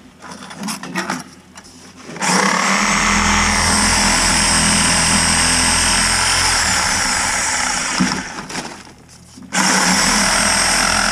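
Reciprocating saw with a carbide-tipped thick-metal blade cutting cast iron drain pipe: a few light handling knocks, then from about two seconds in a loud, steady cutting noise with a high whine. It stops for about a second near the end and starts again.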